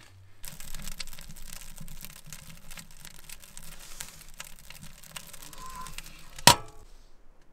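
Birch bark and kindling crackling as the fire catches in a small steel wood stove. About six and a half seconds in, the stove door is shut with one loud metal clank.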